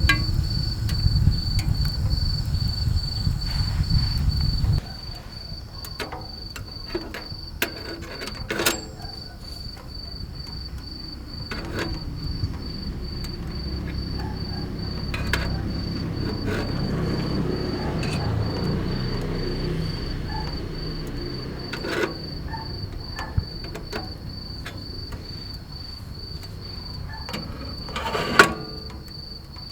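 A cricket chirping in a steady high trill, with scattered sharp pops and cracks from wood burning in the stove, two of them louder than the rest. A low rumble stops abruptly about five seconds in.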